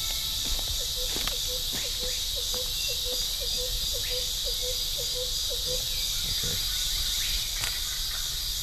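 Steady chorus of insects, high-pitched and unbroken, with a short repeated chirp about two or three times a second through the first six seconds or so.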